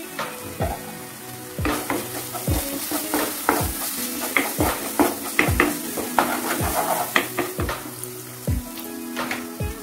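A spatula stirring and scraping onion-tomato masala with ground spices as it fries in oil in a non-stick pan: a sizzling hiss with repeated short scrapes and taps against the pan. Near the end a little water is poured into the masala.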